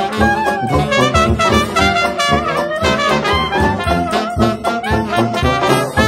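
Instrumental 1920s New Orleans-style jazz, brass-led, with busy melodic lines over a steady beat.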